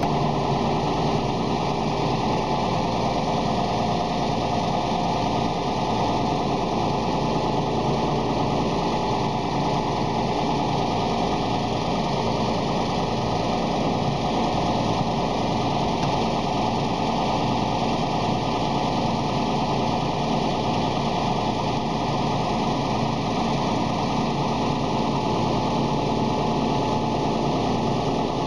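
A machine engine or motor running steadily at one speed, a constant drone with a fast, even buzz.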